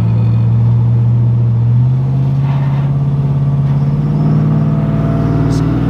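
Cammed Chevy Silverado truck engine and full exhaust heard loud from inside the cab while driving, the engine note rising slowly and steadily as the truck gathers speed.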